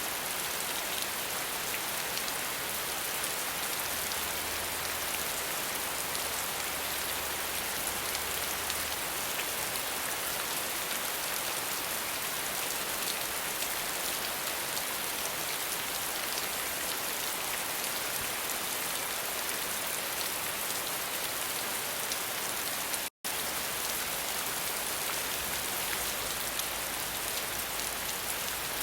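Steady, dense rain shower, a continuous hiss of raindrops on surfaces. About two-thirds of the way through it cuts out completely for an instant, then resumes.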